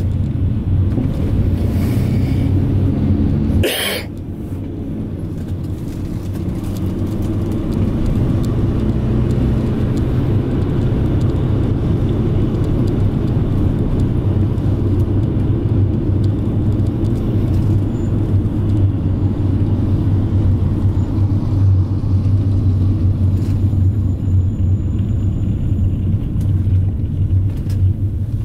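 Minibus engine and road noise heard from inside the cabin while driving: a steady low drone. A single sharp knock comes about four seconds in, after which the drone eases off and then builds back up.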